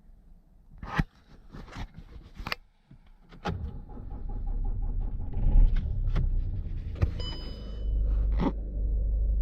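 A few sharp clicks and knocks, then about three and a half seconds in a loud, steady low rumble from the 2009 Volkswagen CC diesel starts up and keeps going, stepping up a little near the end. A short electronic chime sounds partway through.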